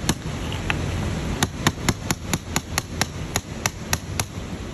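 A small hammer tapping metal parts of an EGR valve actuator into place. It starts with two separate blows, then from about a second and a half in there is a quick run of about four or five taps a second, stopping shortly before the end.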